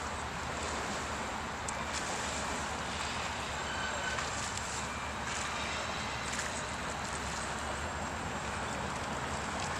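A boat's engine running at low speed under a steady rush of wind and water.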